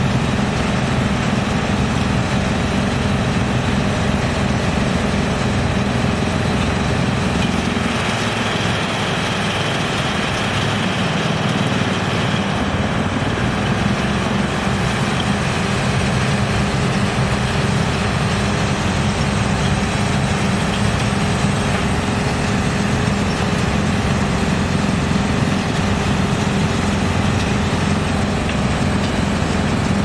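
Big Rotexmaster drum wood chipper, driven by a large electric motor, running and chipping palm wood, with an excavator's engine running alongside: a loud, steady heavy-machinery din.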